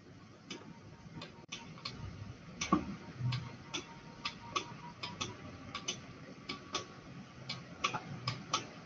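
Light, irregular clicks and taps, two or three a second, made by hand-drawing short hatch strokes on a digital whiteboard.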